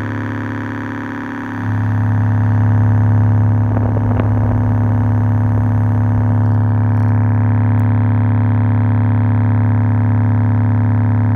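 A 4-inch subwoofer driver playing a steady low test tone with overtones during an excursion test, its cone driven hard. The tone gets louder about a second and a half in, and a brief crackle comes about four seconds in.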